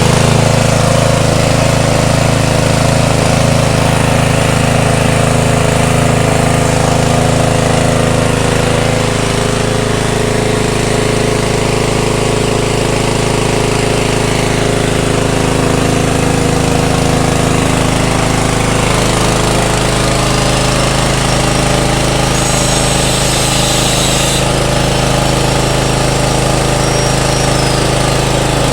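A 7 hp petrol engine running steadily under load, driving an organic-waste pulping and pellet machine with a continuous low thrum. Its pitch shifts slightly twice.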